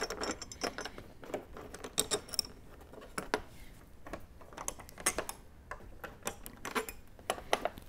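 Light, irregular metallic clicks and taps of a hex driver and small screws being worked out of a motorcycle windshield mount.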